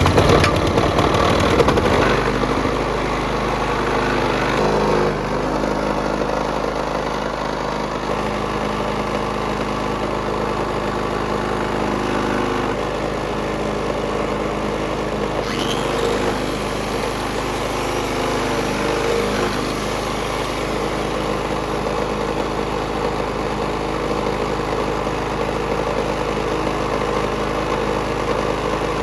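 Kisan Kraft petrol engine driving a restored Honda generator, running steadily just after being started. It is a little louder for the first two seconds, then settles into an even run.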